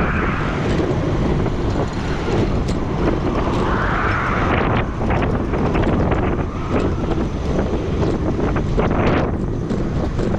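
Strong gusty wind buffeting the microphone: a heavy, continuous rumble that swells and eases in gusts, with no pitched sound.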